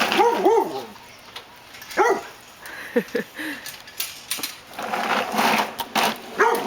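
Dog barking in short, high arched yaps: a couple near the start, one about two seconds in and a quick pair about three seconds in. Near the end the barks give way to a second or so of rushing, rustling noise before the barking picks up again.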